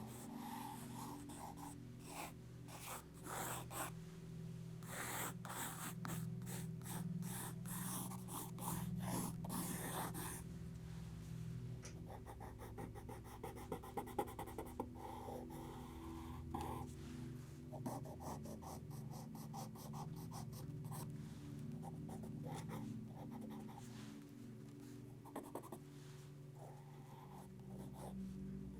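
Sketching strokes scratching across paper, in quick bursts and runs of fast, short hatching strokes, over a steady low hum.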